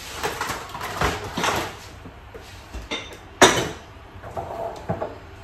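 Containers and jars being handled and set down on a kitchen countertop: a run of light knocks and clatters, the sharpest about three and a half seconds in.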